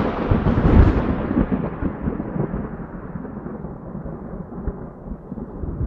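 Loud rustling and knocking from a mourning dove stirring on a desk beside the microphone, starting abruptly with a deep rumble and slowly dying away.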